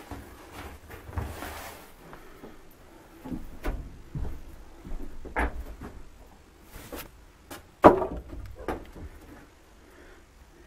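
Old boots being picked up and handled on the wooden attic boards: fabric rustling and a series of irregular knocks and bumps against wood, the loudest a sharp knock about eight seconds in.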